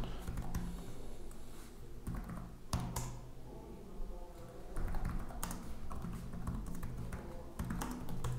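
Typing on a computer keyboard: irregular keystrokes, several quick runs of clicks with short pauses between, as terminal commands are entered.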